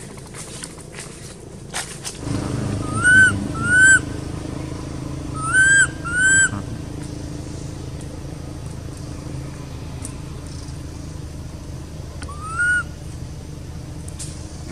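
Young macaque giving short coo calls, each a pitched note that rises and falls: two pairs, then a single call near the end. A steady low hum runs beneath from about two seconds in.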